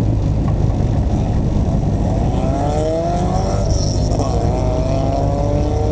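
Car engine heard from inside the cabin, running with a heavy low rumble. From about two seconds in its revs rise, dip briefly near the middle and rise again.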